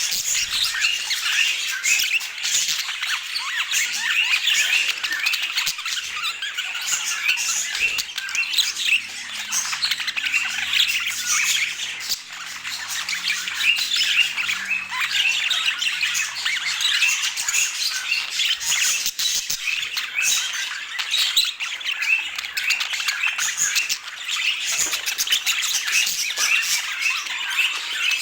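Pet budgerigars chattering and squawking without a break, a dense stream of short, high chirps.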